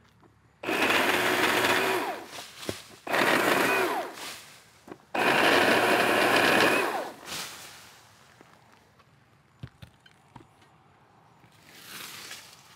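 Milwaukee cordless pole saw's chain running and cutting into a tree limb in three bursts of a second or two each, every burst starting abruptly.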